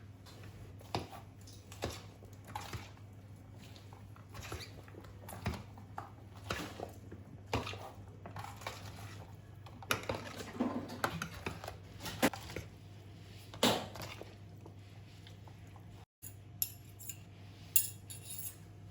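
Dishes and cutlery clinking and knocking in light, scattered touches, busier through the middle, over a low steady hum. There is a brief drop-out near the end.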